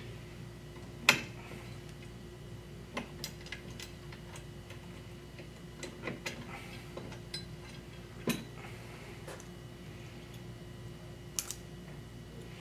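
Scattered sharp metallic clicks and taps as metal retaining pins are worked out of the massage chair's leg-rest mounting bracket, the loudest snap about a second in.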